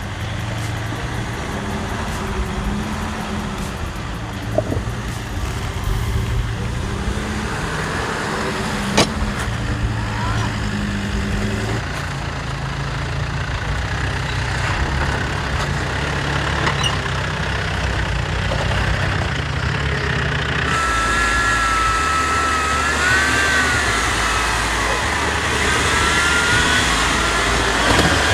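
4x4 vehicle engine running at low revs while crawling over an off-road trail, its note shifting a few times as the throttle changes. A wavering high thin whine joins in during the last third.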